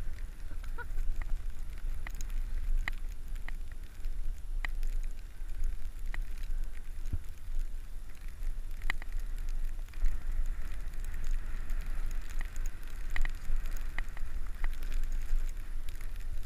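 Wind buffeting an action camera's microphone during a fast run down a groomed snow slope: a steady low rumble, with crackling and scattered sharp clicks from riding over packed snow.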